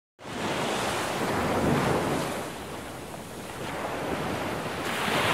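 Rushing sound of ocean surf, starting a moment in, swelling, easing off in the middle and building again near the end.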